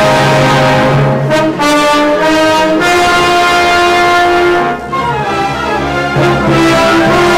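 Symphony orchestra playing loudly in sustained chords, with the brass standing out over the strings. There is a short break in the sound about five seconds in before the full orchestra comes back in.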